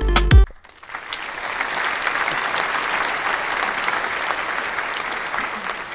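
Music with a strong beat stops about half a second in, and a large crowd's applause builds up and holds steady.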